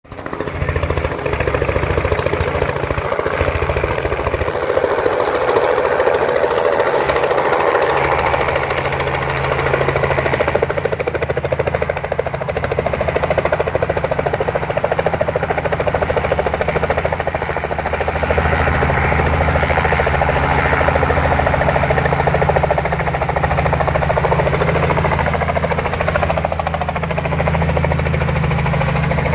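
Light two-bladed helicopter approaching, hovering low and setting down, its main rotor beating in rapid, steady pulses over a low engine drone.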